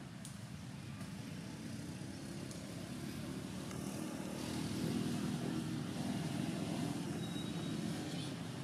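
A motor vehicle's engine running, growing louder over the first half as it draws closer, then holding steady.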